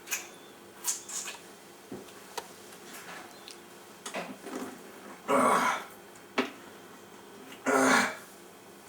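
A man forcing out burps after gulping beer: two loud, rough belches about two and a half seconds apart, after a few small clicks and short throat noises.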